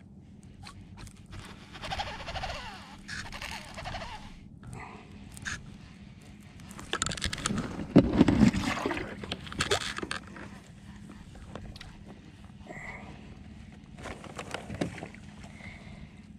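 Handling noise from an angler fighting a fish with a small baitcasting reel: irregular bursts of rubbing, clicks and knocks from gloves, reel and gear. The loudest, a heavy rumbling knock, comes about eight seconds in.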